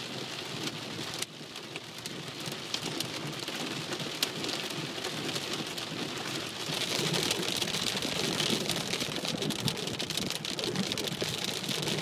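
Heavy rain pelting a car's windshield and roof, heard from inside the moving car as a dense hiss full of individual drop hits. It grows louder about halfway through.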